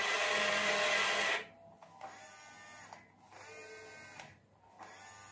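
A toy radio-controlled tower crane's small electric slewing motor and plastic gears whirring, with its small pinion broken. The whir is louder for about the first second and a half, then runs more quietly in three short spells with brief stops between them.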